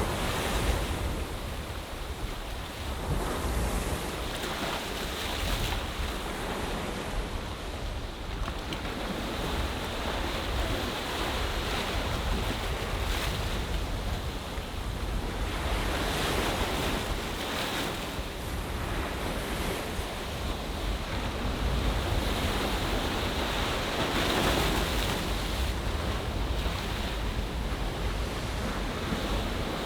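Ocean waves washing in on a bay shore in an unbroken wash that swells and eases every few seconds. Wind buffets the microphone with a low, uneven rumble.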